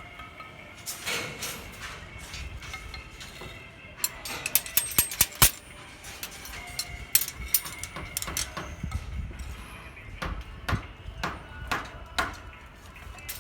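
Irregular sharp metallic knocks and clinks from handling and tying steel reinforcing bars, with a quick run of knocks about four to five seconds in.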